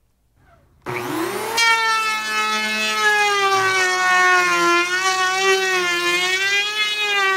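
Electric hand planer starting up about a second in, its whine rising quickly, then running with a loud, steady, high-pitched whine as it bevels the edge of a plywood panel, the pitch wavering slightly under the cut.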